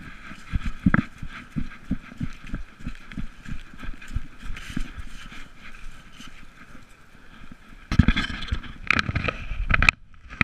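Collar-mounted GoPro jostled by a trotting Irish wolfhound: uneven knocks and thumps with a constant rattle. About eight seconds in, a louder, rougher scuffing noise runs for about two seconds and cuts off suddenly.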